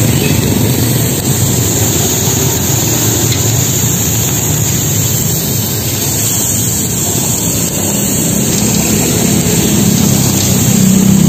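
Octopus sizzling on a hot flat-top griddle, a steady loud hiss, with road traffic rumbling underneath.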